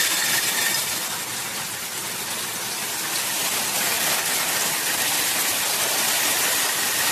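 Heavy rain pouring down in a severe storm: a steady, dense hiss of water without a break.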